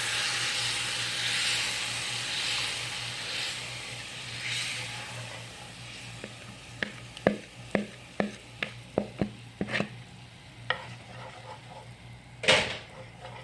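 Tamarind pulp going into a hot pan of spiced oil, sugar and water, sizzling at first and fading over the first few seconds. Then a spoon stirs the sauce, clicking against the pan in a quick run of taps, with one louder knock near the end.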